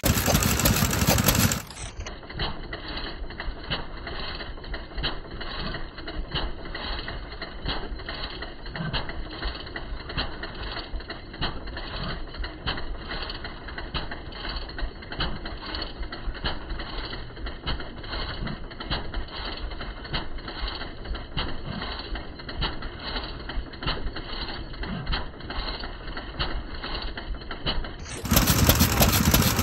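Old single-cylinder farm stationary engines running with a rapid mechanical clatter and ticking. Occasional low thumps sound under the clatter. It is louder and fuller for the first couple of seconds and again in the last second or two, and duller and quieter in between.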